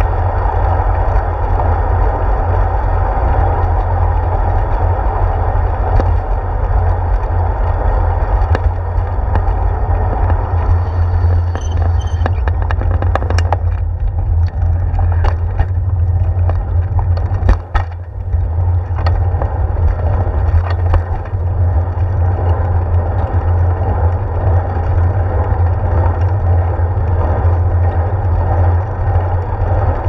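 Steady wind noise and road rumble on a handlebar-mounted GoPro Hero 4 as a bicycle rolls along pavement. A few sharp clicks and rattles come about halfway through.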